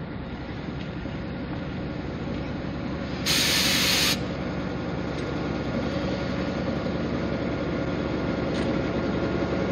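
Lxd2 narrow-gauge diesel locomotive running slowly, its engine growing louder as it approaches. About three seconds in, a loud hiss of released compressed air lasts about a second and is the loudest sound.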